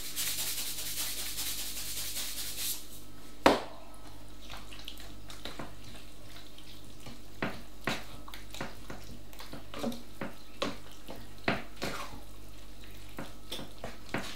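Cooking sounds at a pan of pie filling: a steady hiss for about two and a half seconds, a sharp knock about three and a half seconds in, then scattered light clicks of a utensil against the pan.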